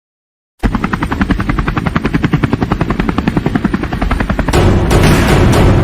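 Ringtone track opening on a rapid, even chopping pulse like a helicopter rotor, then switching about four and a half seconds in to loud music with heavy booming beats.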